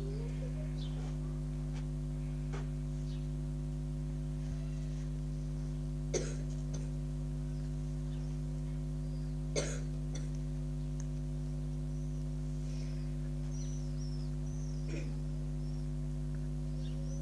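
A person coughing twice, short and sharp, about six and nine and a half seconds in, over a steady low hum.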